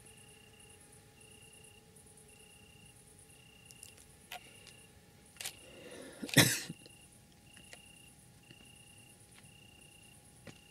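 Night-time crickets chirping in a steady, even rhythm of high pulses. About six seconds in there is a single short, loud noise, louder than anything else.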